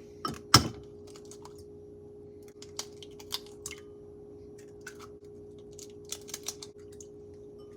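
Kitchen handling sounds: one loud knock about half a second in, then scattered light clicks and taps on a countertop, over a steady low appliance hum.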